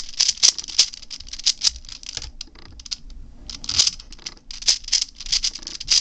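A 6x6x6 V-Cube puzzle's plastic layers clicking and clacking as they are turned quickly by hand, in irregular runs of sharp clicks with a short lull about halfway through.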